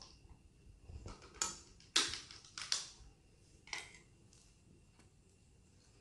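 A handful of sharp crackling clicks, about five in two and a half seconds, from children eating and handling tableware at close range.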